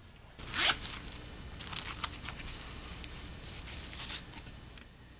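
Handling noise as a compact disc is pulled out of its case or packaging: one sharp rasping stroke about half a second in, then several shorter scraping rustles.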